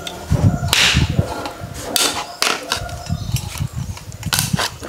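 A heavy curved knife's back striking a husked coconut to crack it open: several sharp cracks at irregular intervals.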